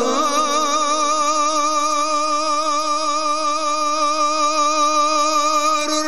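A man chanting a Mouride khassida, Arabic religious verse, holding one long sung note with an even vibrato.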